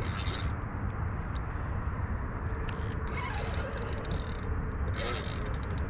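Outdoor background noise: a steady, fluttering low rumble, with a few short spells of hiss.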